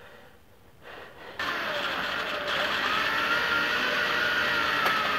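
An electric drill starts up about a second and a half in and runs steadily, its bit cutting through stacked steel languette strips, with a thin whine that wavers slightly in pitch.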